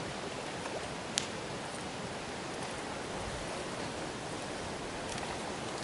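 Steady, even outdoor noise hiss with one sharp click about a second in.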